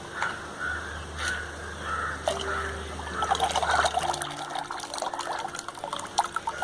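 Clay being stirred by hand in a bucket of water, the slurry sloshing and splashing, busiest a little past the middle.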